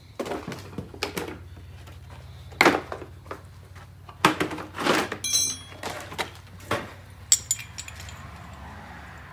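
Metal adapter pieces of a brake caliper piston tool kit clattering and clinking in their plastic case as they are picked through, with several sharp knocks and a brief metallic ring.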